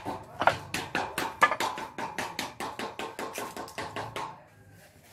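Rapid, even tapping or knocking, about six strokes a second, that stops near the end.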